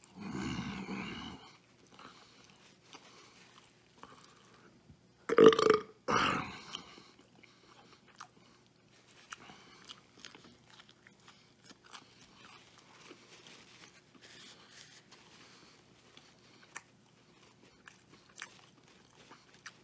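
A man burping loudly, with two burps close together about five and a half and six seconds in, between stretches of quiet chewing of a bacon cheeseburger, heard as many small clicks and mouth smacks.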